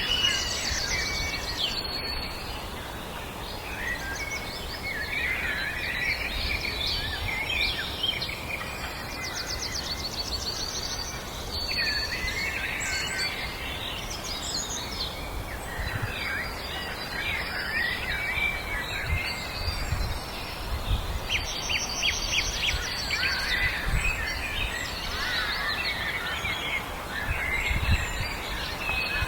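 Many songbirds singing at once: overlapping chirps, whistles and rapid trills, over a low background rumble.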